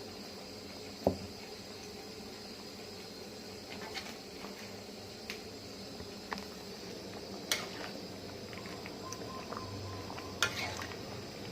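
A pot of sour chicken-offal soup bubbling steadily on the boil. A few sharp knocks or clinks come through, one about a second in and two more in the second half.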